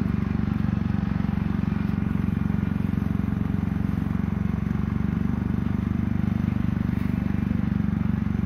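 An engine running steadily at a constant speed: a low, even, pulsing drone that does not change.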